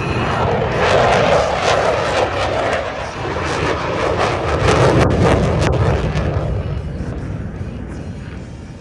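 Airplane flying past at an air show: a loud engine roar that swells, peaks twice, then fades away as it passes.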